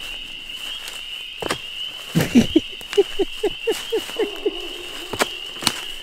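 A steady, even, high drone of night insects, with a few sharp cracks of snapping twigs or wood. About two seconds in, a run of short pitched calls repeats roughly four times a second for a couple of seconds.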